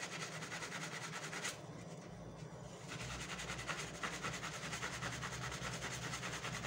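Kitchen sponge scrubbing a small lathered metal stove burner part: a rapid, even, rhythmic scratching. It thins out about a second and a half in, then picks up again about a second and a half later.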